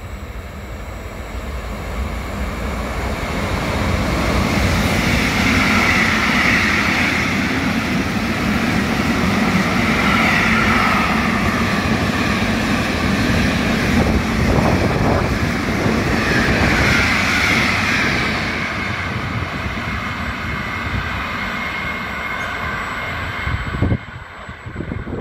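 Freight train of container wagons hauled by an E494 electric locomotive passing at high speed, its rolling noise rising over the first few seconds, staying loud while the wagons go by, then fading and dropping sharply near the end.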